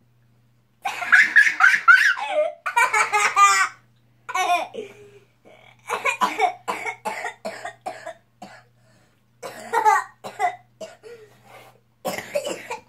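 A boy making wordless coughing and laughing noises in several bursts, the loudest in the first few seconds, as he play-acts being possessed.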